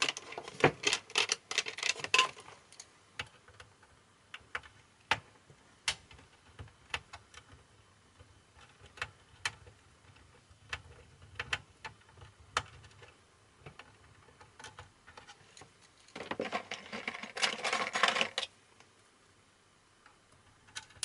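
Hand tools and a cassette deck's chassis being handled, with small hard clicks and clatter. At the start a dense run of clicks sounds like a screwdriver being picked out from among other tools. Scattered single clicks follow as screws are worked out, then a longer burst of rattling near the end.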